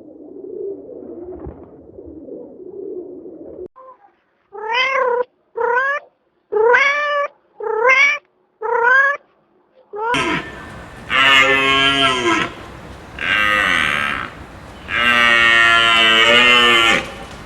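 Farm animals calling in three cuts. First a low, steady murmur of calls, then five short rising meow-like calls about a second apart, then from about ten seconds in several longer, louder calls, each a second or two long.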